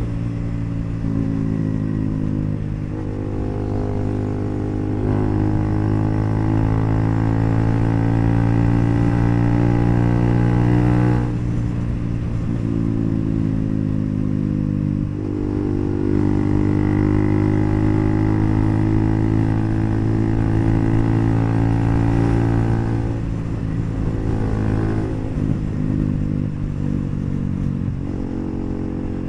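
Bajaj NS400Z's single-cylinder engine running through an HP Corse aftermarket exhaust while riding. The note climbs and falls with the throttle, with clear breaks at gear changes about 11 and 15 seconds in.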